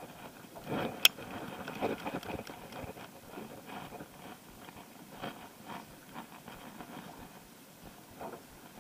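Fishing rod and baitcasting reel being handled: a single sharp click about a second in, then scattered light knocks and rustles.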